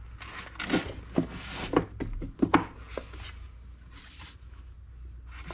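Paperback manga volumes being slid onto a shelf of an IKEA Billy bookshelf and shuffled into line: a string of light knocks and taps as the books hit the shelf and each other, with the rubbing of covers sliding past one another.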